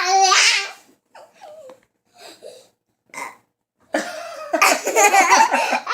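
Young children laughing and shrieking loudly from about four seconds in, after a short high vocal sound at the start and a few small faint sounds between.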